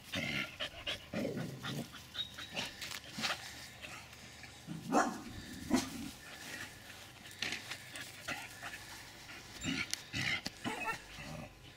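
Staffordshire bull terriers vocalising in short irregular bursts while running the agility course, with scattered knocks and rustles from their movement.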